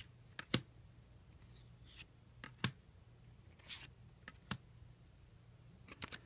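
Weiss Schwarz trading cards being handled and set down on a table: a few sharp taps and clicks, with a brief swish of a card sliding near the middle.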